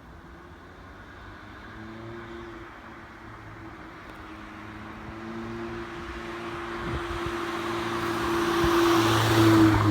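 Audi 8V-generation S3 or RS3 engine running at steady revs as the car approaches, growing steadily louder.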